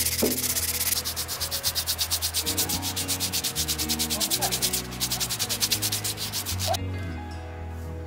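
Sandpaper rubbed quickly back and forth over a carved neem-wood spoon in fast, rhythmic strokes, stopping abruptly about seven seconds in.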